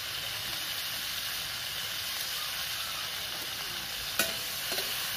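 Cauliflower florets frying in oil in a kadai over a wood fire: a steady sizzle. A single sharp click sounds about four seconds in.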